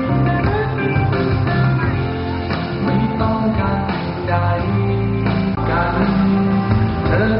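A man singing a Thai pop song live into a handheld microphone over backing music with a steady bass line.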